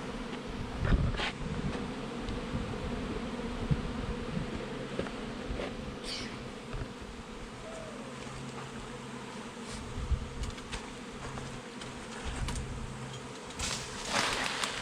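A swarm of honey bees in flight, buzzing steadily, with a couple of brief rustles about a second in and near the end.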